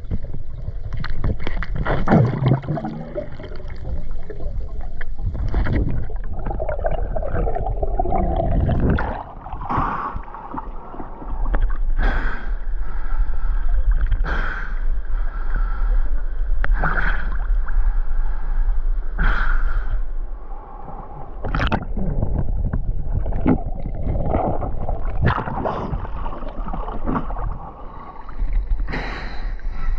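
Water gurgling and sloshing around a GoPro held by a swimmer, muffled underwater at first, then splashing at the surface with the camera half-submerged. From about the middle on, a sharp splash comes roughly every two and a half seconds.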